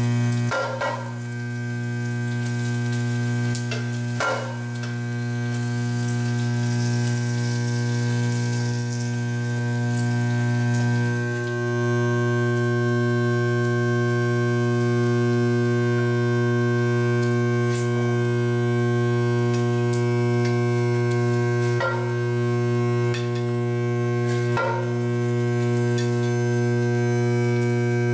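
Steady electrical hum from the induction levitation coil powering the hovering frying pan, with bacon and an egg sizzling in the pan. A spatula knocks against the pan four times: near the start, about four seconds in, and twice past twenty seconds.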